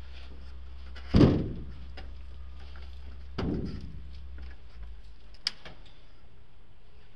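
Two heavy thuds with a ringing decay, about two seconds apart, then a sharp click: a climber's hands and body knocking against the metal fins of a building's facade as he climbs.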